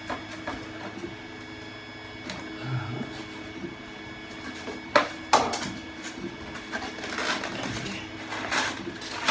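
Styrodur foam boards being shifted and pressed into place by hand: rubbing and scraping of foam on foam, with two sharp knocks in quick succession about five seconds in. A steady hum runs underneath.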